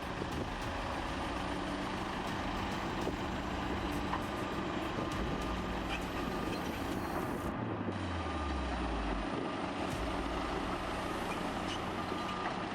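Diesel engine of heavy earthmoving machinery running steadily. About eight seconds in, the engine note drops low as it slows down.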